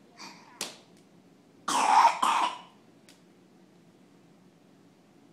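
Hiccups after a crying fit: a short sharp hic well under a second in and a fainter one about three seconds in, with a louder breathy cough in two quick parts about two seconds in.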